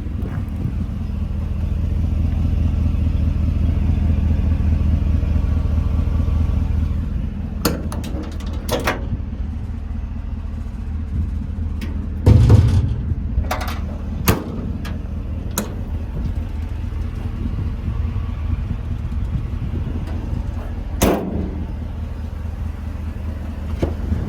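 Heavy-duty pickup truck engine idling steadily, with a run of short knocks and clunks over it; the heaviest thump comes about halfway through.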